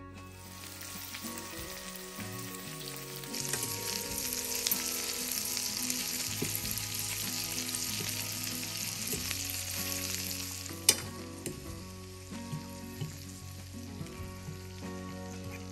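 Meatballs sizzling as they fry in oil in a nonstick frying pan while being turned with forks; the sizzle grows louder a few seconds in and eases off again about eleven seconds in. A single sharp click comes about eleven seconds in.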